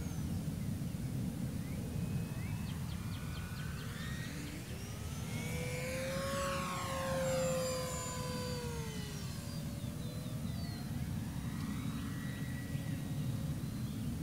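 Electric motor and propeller of a Tower Hobbies Cessna 400 RC model plane whining as it flies past overhead, loudest about seven seconds in, then dropping in pitch as it passes. A steady low rumble lies beneath it.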